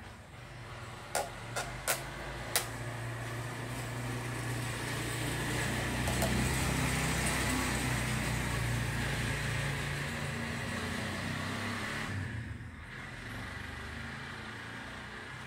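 A low mechanical hum that swells over several seconds and drops off sharply about twelve seconds in. Four sharp clicks come in the first three seconds as the folding wooden basket is handled.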